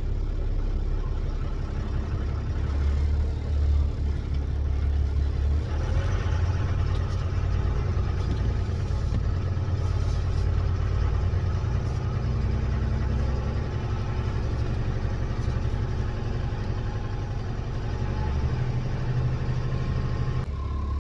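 5.9 Cummins turbo-diesel of a 2007 Ford F650 running at low speed while the truck reverses, heard from inside the cab, its turbocharger's silencer ring removed. A steady low engine drone, a little louder after the first couple of seconds, with a faint higher whine over it.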